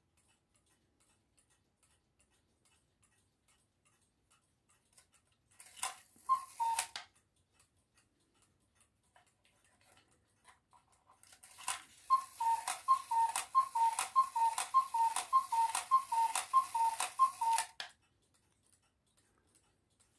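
Cuckoo clock calling: its bellows-blown pipes give the two-note cuckoo, higher then lower, once about six seconds in, then about eleven times in a row after a pause, with the movement ticking softly throughout.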